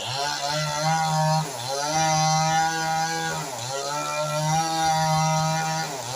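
Multipro 58cc two-stroke chainsaw with a 37-inch bar, running at high revs. It revs up at the start, then its pitch sags and recovers three times.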